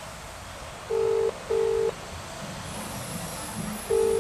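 Telephone ringback tone heard through a smartphone's loudspeaker: a double 'ring-ring' about a second in and the next one starting near the end, the sign that the call is ringing at the other end and not yet answered.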